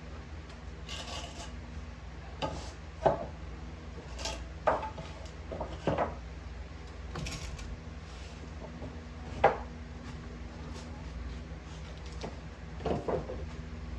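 Pressure-treated wooden boards being picked up, slid and set aside: wood scraping on wood, with several sharp knocks as boards are put down, loudest about three seconds in and again just before ten seconds.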